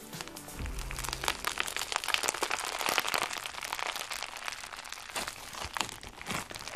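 Crunchy floam, a large slime packed with polystyrene foam beads, being squeezed, pressed and stretched by hand, giving a dense, irregular crackling and popping of the beads.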